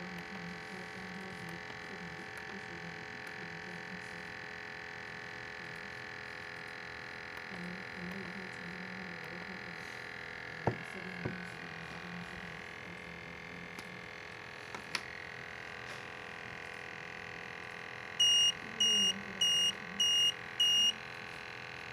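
Portable PID TVOC gas detector's alarm sounding five short, high-pitched beeps, about two a second, near the end. This is its first-level (AH1) high-concentration alarm, set off by a reading of about 41 ppm TVOC. Under it runs a steady hum with a few soft clicks.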